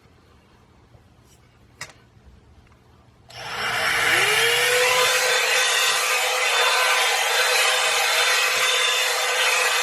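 Revlon One-Step hair dryer brush switched on after a few quiet seconds with a couple of small clicks: its motor whine rises in pitch as it spins up, then it runs steadily with a loud rush of air.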